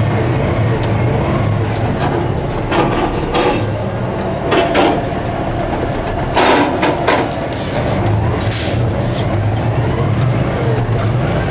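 Madill 120 grapple yarder's diesel engine running steadily as the machine works a log with its grapple, heard from inside the operator's cab. Several short, sharp noises break in over the drone through the middle of the stretch.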